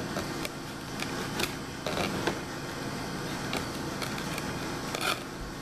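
Handling of a cardboard toy box: scattered light clicks and rustles over a steady background hiss, the sharpest about five seconds in.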